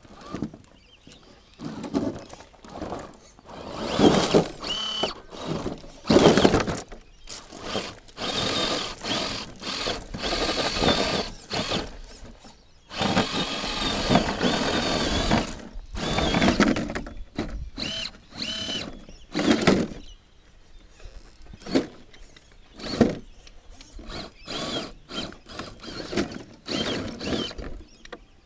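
Vaterra Ascender Blazer RC rock crawler's 35-turn brushed electric motor and geartrain whining in stop-start bursts as it crawls up a rock step, with clicks and knocks in between.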